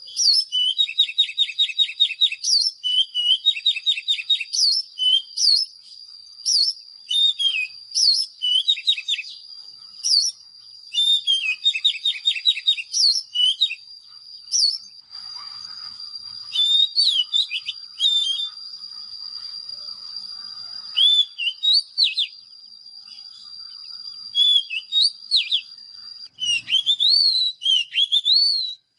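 Oriental magpie-robin singing: short phrases of clear whistled notes sliding up and down, mixed with fast chattering trills, repeated with brief gaps, over a steady high-pitched tone.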